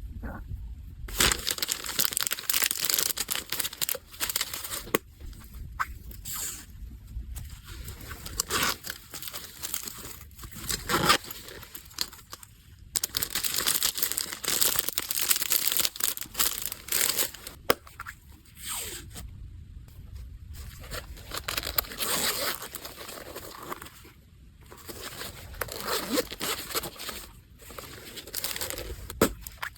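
Packaging being handled: crinkling and tearing of wrapping material, in long busy stretches of rustle and crackle through the first half, then shorter separate bursts.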